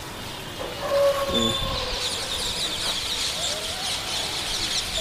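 Many small birds chirping rapidly in a dense chorus, starting about two seconds in. Before that, a brief drawn-out whine, slightly falling, about a second in.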